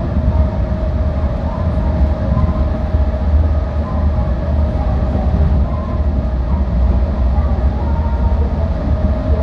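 Busan Metro Line 4 rubber-tyred light-metro train running at speed through a tunnel, heard from inside the front car: a steady deep rumble with a constant hum over it.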